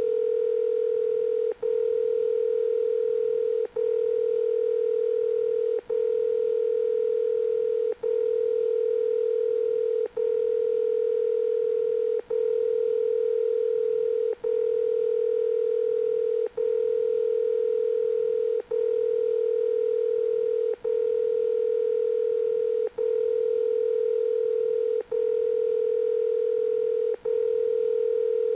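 Steady, single-pitch telephone dial tone that runs unbroken except for a very brief dropout about every two seconds.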